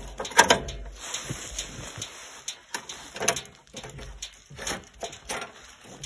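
Scattered sharp metallic knocks and rattles as a bandsaw blade is handled and worked onto the band wheels of a Woodland Mills HM122 sawmill. The loudest clacks come about half a second in and again around three and five seconds in.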